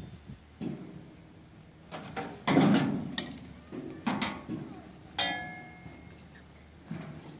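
A few separate knocks and bangs, the loudest about two and a half seconds in; one near five seconds in rings on briefly with a steady tone.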